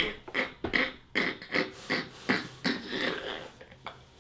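A man laughing hard in short, breathy bursts, about three a second, growing fainter toward the end.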